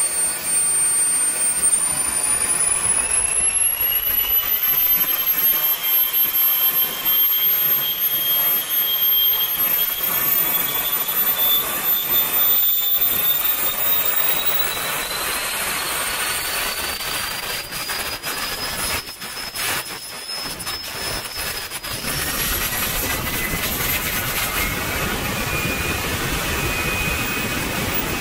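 Wren 54 model jet turbine running with a loud high-pitched whine. The pitch climbs as the throttle is raised in steps during its throttle-learning run with the ECU, then drops a step about three-quarters of the way through.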